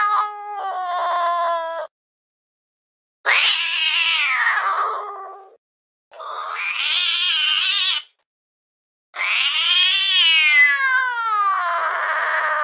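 Domestic cat meowing in long, drawn-out calls with silence between them. The last call is the longest and slides down in pitch.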